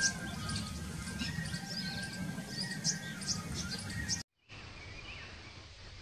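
Many small birds chirping in a busy chorus of short, high twitters over a low background rumble. About four seconds in it cuts off abruptly, giving way to a quieter outdoor background with only faint chirps.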